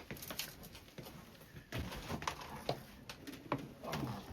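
Scattered light clicks and knocks, a few at a time, with faint low shuffling in between, like people moving about in a small cluttered room.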